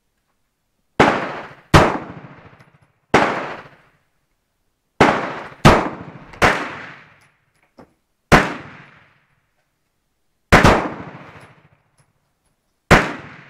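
Star BM 9mm pistol firing nine shots at an uneven pace, some in quick pairs, each crack trailing off in an echo.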